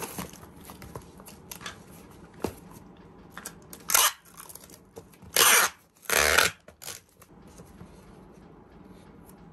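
Packing tape pulled off a handheld tape dispenser across a cardboard box: one short rip about four seconds in, then two longer rips over the next three seconds. Before them, soft rustling and light knocks as the box flaps are folded shut.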